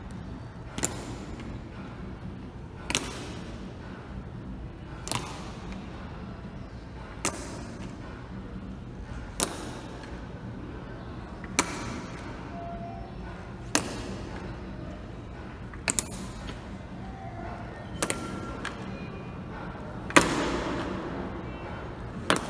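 Honor guards' boots striking a tiled floor in unison during a slow march, one sharp clack about every two seconds, echoing through a large hall. The loudest step, near the end, leaves a longer ringing tail.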